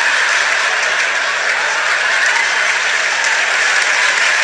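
Stand-up comedy audience applauding steadily.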